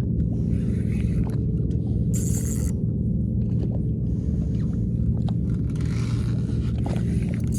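Boat engine running steadily with a low, even hum. A brief hiss comes a little over two seconds in.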